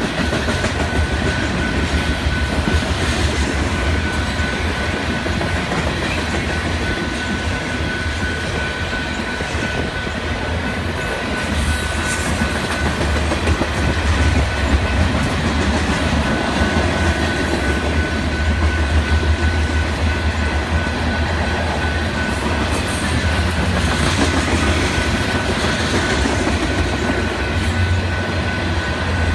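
Freight train of covered hopper cars rolling steadily past at a grade crossing: a continuous rumble with wheels clacking over the rail joints and a few clanks from the cars, a thin steady high tone running under it.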